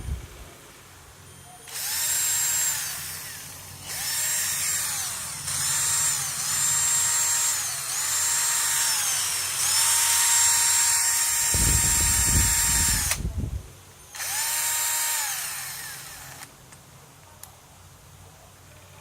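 A 12V cordless drill run in a series of about seven short bursts, each spinning up to a steady whine and winding back down, the longest lasting about three and a half seconds. Low thudding sits under that longest run.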